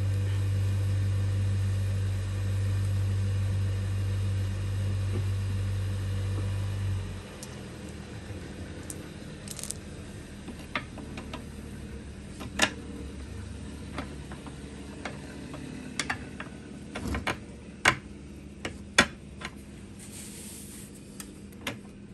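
A steady low machine hum that cuts off suddenly about seven seconds in, then scattered sharp metallic clinks of hand tools and bolts against a car's suspension parts as a suspension arm link is fitted.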